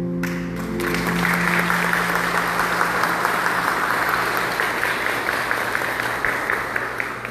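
A church congregation applauding: dense hand-clapping breaks out just after the start and thins out near the end. Held notes of music fade away under it at the start.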